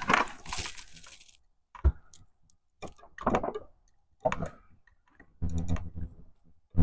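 Scattered sharp clicks and light knocks, about six spaced over several seconds with quiet gaps between, like small hard parts and tools being handled.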